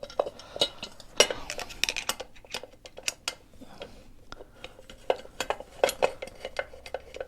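Irregular light metallic clicks and clinks of hand tools and small screws being handled while an engine cover is worked loose, at times several a second.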